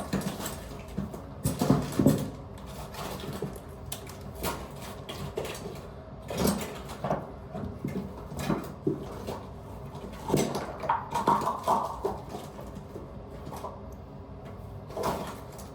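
Irregular clatter, knocks and rustling of tools being rummaged through in a plumber's tool bag, with a few louder knocks about two seconds in and again around ten to twelve seconds.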